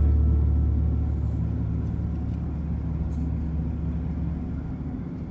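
Low, steady rumble of a motor vehicle, fading slowly.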